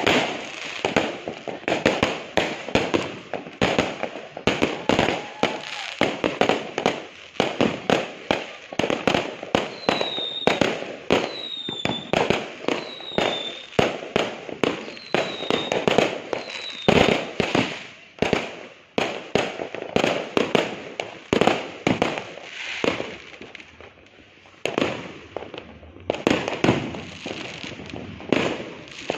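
New Year fireworks and firecrackers going off in a dense, irregular barrage of overlapping bangs and crackles. About a third of the way in, a short high whistle sounds about five times, and the barrage thins briefly near the end before picking up again.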